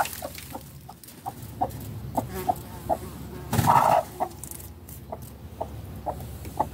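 A hen clucking: a string of short clucks, roughly two a second, with one louder, longer call a little past halfway.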